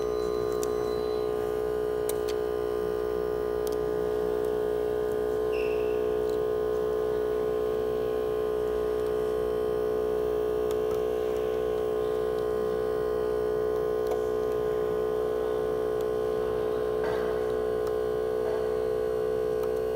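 Steady electrical hum, a stack of evenly spaced tones with the strongest a mid-pitched drone, running without change. A few faint clicks sound over it.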